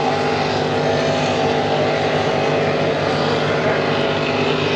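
Steady engine drone of high-horsepower race boats running across the water, mixed with a small propeller plane flying low over the course.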